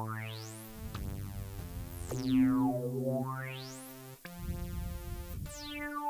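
Korg microKorg synthesizer playing a preset from its Retro section: held notes that change every second or so, with a thin tone sliding up and down across the range several times.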